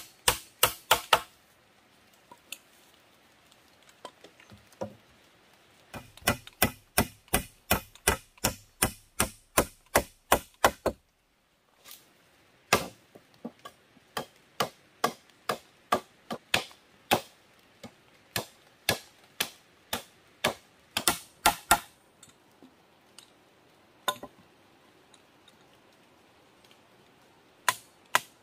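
Repeated sharp blows of a hand tool striking wooden poles, in quick runs of about two to three strikes a second, broken off briefly about eleven seconds in.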